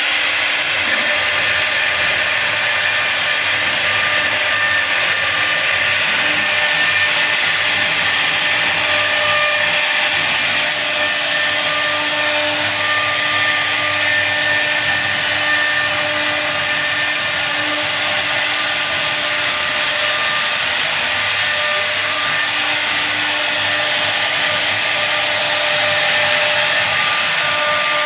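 CNC router spindle running steadily, its bit cutting a design into wood, with a steady cutting hiss and faint whining tones.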